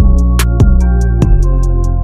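Music with a steady, fast percussive beat over sustained chords.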